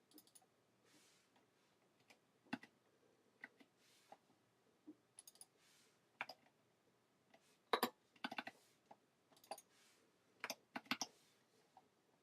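Computer keyboard typing: irregular key clicks, some in quick clusters, the loudest clusters about eight and eleven seconds in.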